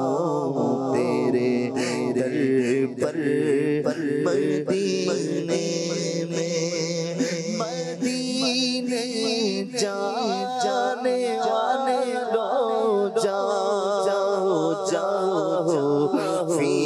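A man singing an Urdu naat (devotional hymn) into a microphone in a slow, ornamented, chant-like melody, without instruments, over a steady low drone.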